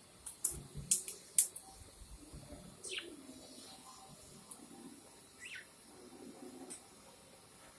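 Budgerigar having a sneezing fit: a quick run of short, sharp sneezes in the first second and a half, then a couple of brief squeaks that fall quickly in pitch.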